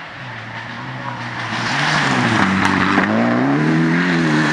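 Rally car driven hard on a gravel stage, getting louder as it approaches over the first two seconds. Its engine note falls and climbs twice as the revs change, over a spray of gravel from the tyres.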